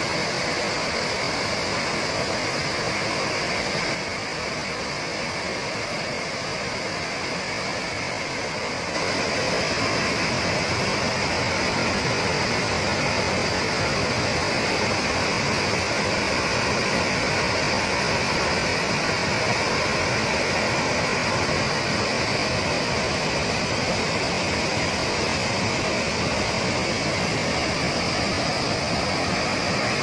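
Wide waterfall in full flood, a broad curtain of muddy river water pouring over a rock ledge: a steady, loud rush of falling water, a little quieter for a few seconds about four seconds in.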